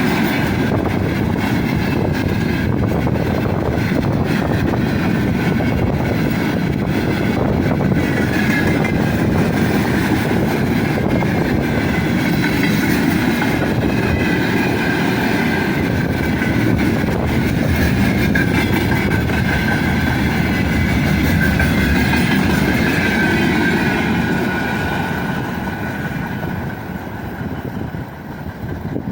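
Freight train wagons rolling past, with the wheels clattering on the rails and a steady high wheel squeal above the rumble. The sound drops away over the last few seconds.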